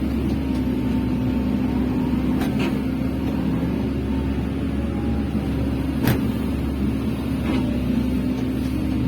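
Hydraulic excavator's diesel engine running steadily, with a few sharp knocks, the loudest about six seconds in.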